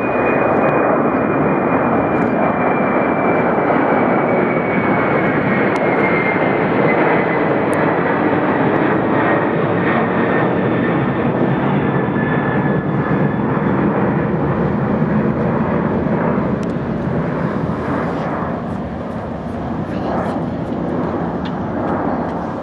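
Boeing 747-400 freighter's four jet engines at takeoff thrust as it climbs out overhead: a loud roar with a high whine that slowly falls in pitch, easing off a little near the end.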